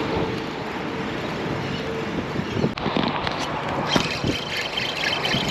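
Steady outdoor background of wind and vehicle noise, with a few sharp knocks a little under three seconds in and a fast run of high clicking from about four seconds in.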